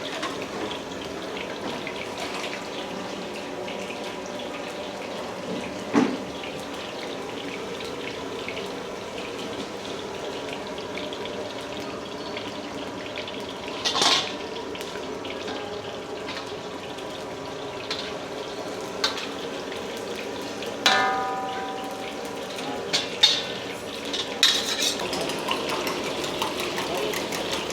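Wok cooking: a steady hiss of frying over the burner, broken by a handful of sharp metal clanks of a ladle against the wok, one of them ringing on briefly.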